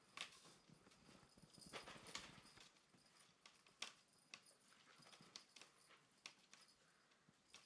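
Faint, irregular taps, clicks and scuffles of a Bengal kitten playing, its paws and claws tapping and scrabbling.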